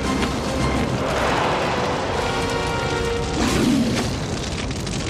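Orchestral film score with held notes, and two deep rumbling booms underneath, about a second in and again about three and a half seconds in.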